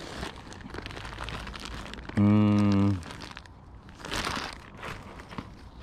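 Clothes rustling as they are sorted by hand, then a clear plastic bag crinkling as it is handled about four seconds in. About two seconds in, a loud steady buzzing tone lasts just under a second.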